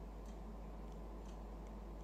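Quiet room tone: a low steady hum and faint hiss with a few faint ticks.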